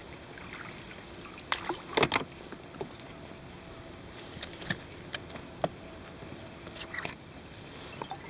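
Steady wind and water noise around a small fishing boat. A cluster of sharp knocks comes about one and a half to two seconds in, and a few single clicks follow later, from fishing gear being handled aboard.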